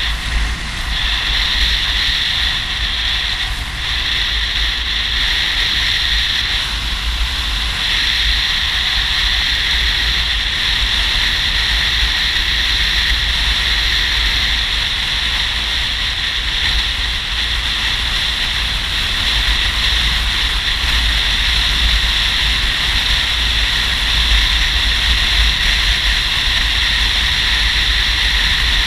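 Wind and road noise of a touring motorcycle cruising steadily, picked up by the rider's microphone in the airflow: a constant rush with a low rumble underneath.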